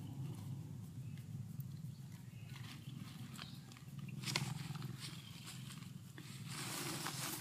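Domestic cat purring close to the microphone: a low, steady, pulsing rumble. A brief rustle comes about four seconds in and a longer one near the end.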